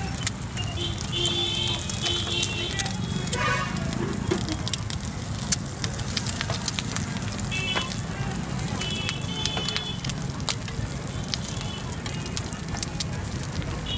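Hot oil sizzling and crackling in a wide iron pan as a fried egg and halved burger buns fry in it, with a steady low hum underneath.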